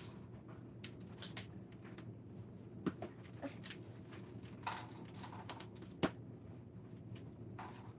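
Small plastic Lego bricks clicking and tapping as they are picked through on a wooden table and pressed together: scattered single clicks, the sharpest about six seconds in, over a low steady hum.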